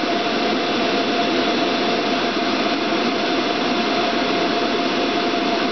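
Pool pump motor running: a constant rushing noise with one steady tone through it.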